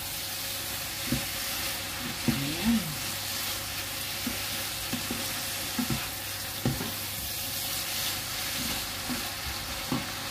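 Mung bean sprouts and glass noodles sizzling in a hot nonstick frying pan as they are stirred and tossed with a wooden spatula. A steady frying hiss runs under scattered short scrapes and knocks of the spatula against the pan.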